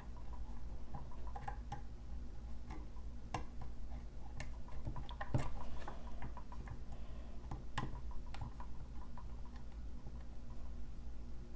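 Lock pick working inside a pin-tumbler challenge lock: faint, irregular little clicks and taps as the pick probes the pins.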